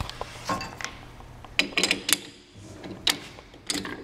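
Irregular clicks and knocks of hands working a metal lathe chuck and taking out a white UHMW plastic workpiece, over a low steady hum.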